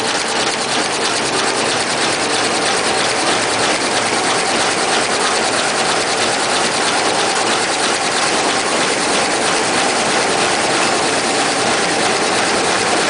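Kitchen towel production line running: steady, loud machine noise of rollers and drives, with a fast, even clatter running through it.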